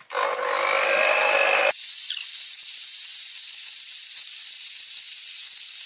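Electric hand mixer running, its beaters whipping crème fraîche and sugar in a bowl, a steady motor whine over the churning. About a second and a half in the sound cuts abruptly to a high, even hiss with a thin high whine.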